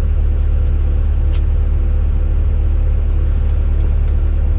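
Engine running steadily with a deep, even drone, and one short sharp click about a second and a half in.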